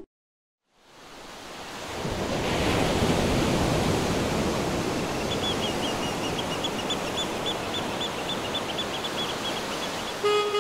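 Sea surf washing steadily, fading in over the first two seconds, with a quick run of high chirps, about four a second, over its second half. Music starts right at the end.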